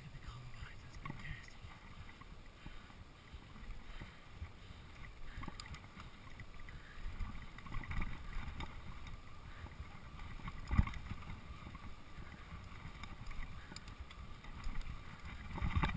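Mountain bike rolling down a dirt singletrack: low wind rumble on the microphone with the rattle of tyres and frame over the ground, and one sharp knock a little before eleven seconds in.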